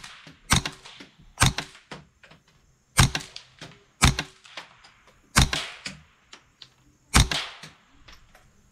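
Suppressed Smith & Wesson M&P15-22 .22 LR rifle with an AAC Prodigy suppressor firing CCI Clean subsonic rounds: six quiet, sharp pops at uneven intervals, with no supersonic crack downrange. Fainter clinks of spent brass casings landing follow the shots.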